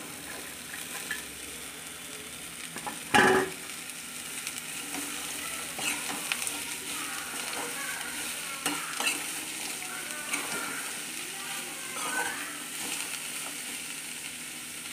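Chopped beetroot sizzling in hot oil in a metal kadai as it is stirred with a steel spoon, the spoon scraping the pan. One loud clank of metal on metal about three seconds in.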